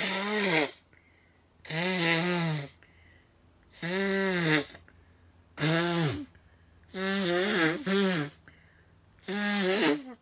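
A person blowing a stuffy, allergy-congested nose into a tissue: six loud, honking blows, each under about a second long, coming roughly every two seconds.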